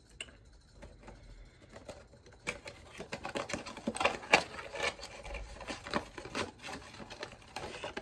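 A small cardboard perfume box being handled and opened, its flaps pulled apart and the bottle slid out: a quick run of clicks, taps and scrapes that picks up about two and a half seconds in, with the sharpest knock near the middle.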